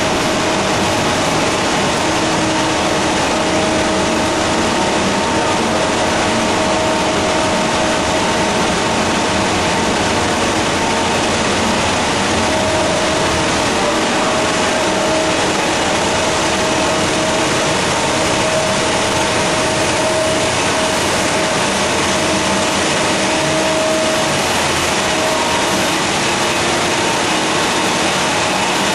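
Pilot-scale fourdrinier paper machine running: a steady, loud wash of machinery noise with a few steady hums held under it, unchanging throughout.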